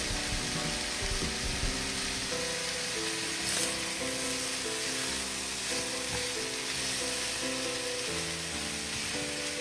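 Chicken drumsticks sizzling steadily as they fry in a very hot stainless steel pan with garlic and onion, with occasional stirring noises. Background music with held melodic notes plays along.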